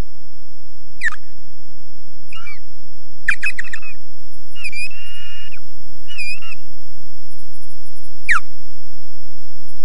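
Osprey giving alarm calls in defence of its nest. Sharp whistles slide steeply downward about a second in and again near the end, with a run of shrill, rapidly repeated and wavering notes in between.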